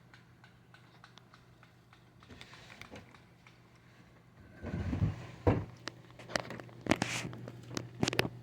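Kitten eating: small clicking chewing sounds, with louder bumps and rustling in the second half.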